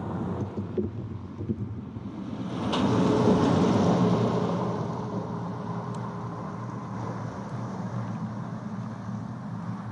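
Road traffic on a highway bridge: a steady low rumble, with one vehicle passing that grows loudest about three to four seconds in and then fades.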